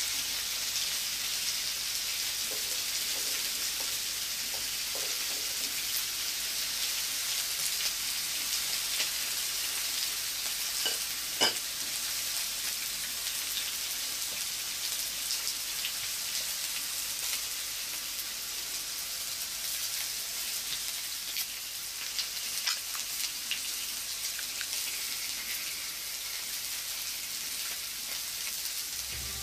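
Hiroshima-style okonomiyaki frying on a steel teppan griddle: a steady sizzle of the noodles and the layered pancake cooking. Metal spatulas clink sharply on the hot plate a few times, most clearly about a third and three quarters of the way in.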